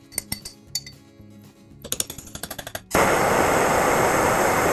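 Light metal clinks and taps of tools on the hydraulic gear pump's housing over background music. About three seconds in, a loud steady hiss of a gas torch flame heating the pump housing starts abruptly.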